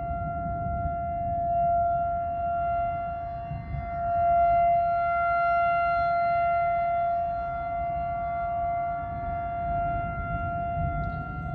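Outdoor warning siren sounding a steady tone for a tornado warning, slowly swelling and fading in loudness, with a low rumbling noise underneath.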